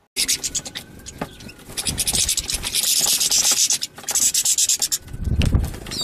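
Goldfinches scrabbling and fluttering at a seed feeder: a dense run of scratching and rustling that starts abruptly, with a low rumble near the end.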